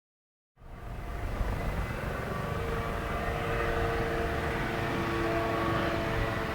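Helicopter in flight: a steady low rumble of the rotors with a few steady whining tones from the turbine engine. It cuts in abruptly from silence about half a second in.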